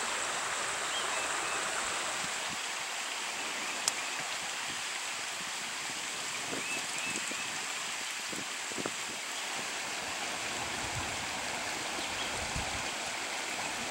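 Creek water running steadily, an even rushing hiss, with an occasional faint click.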